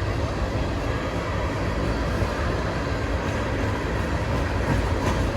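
Norfolk Southern manifest freight train rolling slowly past at close range: a steady, even rumble of the train on the rails.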